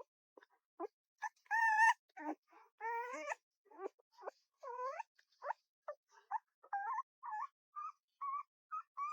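A puppy whining: a quick run of short, high-pitched whimpers and yips, about two a second, the loudest a longer wavering cry about one and a half seconds in.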